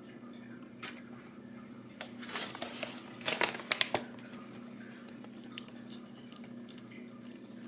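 Small vinyl Transformers BotBots toy figure being handled and twisted in the fingers as it is transformed: scattered light plastic clicks and rustles, busiest and loudest about two to four seconds in.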